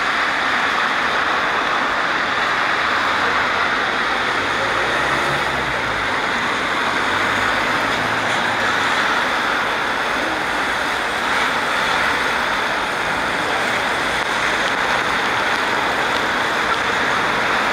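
Steady rain hiss on a wet street, with cars driving past on the wet road and their tyres swishing through the water. A deeper engine rumble from a passing vehicle swells and fades between about four and nine seconds in.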